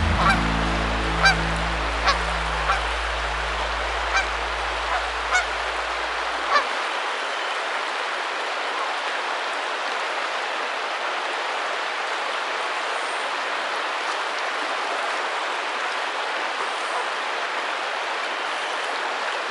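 River water rushing over a riffle, a steady hiss throughout. Over the first six seconds or so a low music bed fades out, with about eight short sharp sounds scattered through it.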